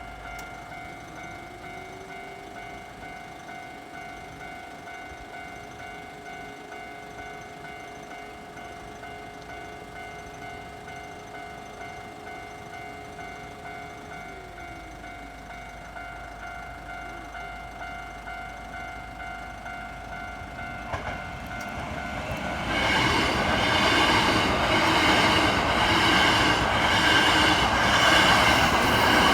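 A Japanese level-crossing warning bell rings with a steady repeated ding. After about twenty seconds a Hankyu 1300 series electric train passes close by and gets much louder, its wheels clattering rhythmically over the rail joints.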